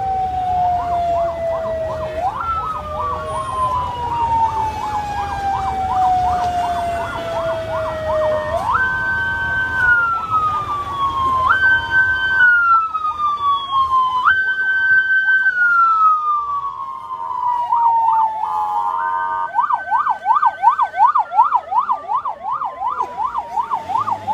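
Police vehicle sirens sounding together: one tone repeatedly jumps up in pitch and slowly falls, while another yelps in a fast rising-and-falling warble about three times a second, loudest and most pulsing near the end.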